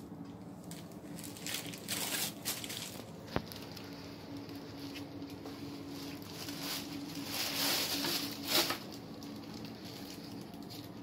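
Two bursts of rustling, about two seconds and eight seconds in, with a single sharp click between them, over a steady low hum.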